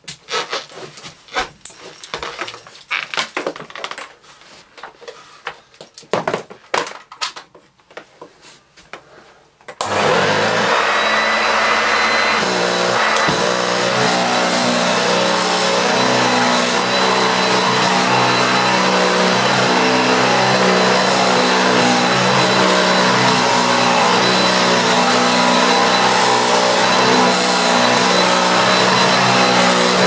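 Scattered clicks and knocks as the plug goes in and the switch is handled. About ten seconds in, a Hoover Junior 1346A upright vacuum switches on, its motor whining up to speed, then runs steadily as it is pushed over carpet, its belt-driven brush roll giving a metallic, tinny, rattly sound, which the owner puts down to a brush roll or hood that might be slightly bent.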